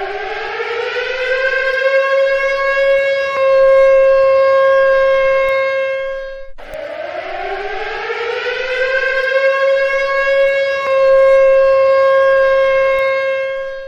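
Civil defense siren winding up in pitch and then holding a steady tone, cutting off sharply and winding up again, in two cycles of about seven seconds each, sounding a nuclear attack warning.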